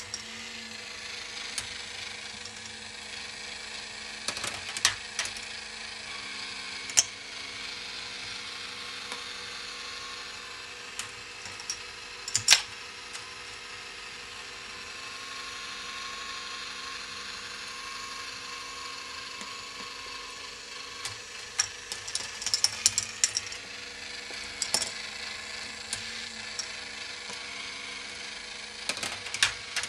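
A revolving K'nex ball machine running: its plastic gears whir steadily as the structure turns, with scattered sharp clicks and clatters of plastic balls rolling and dropping through the plastic track, a cluster of them a little past two-thirds of the way through.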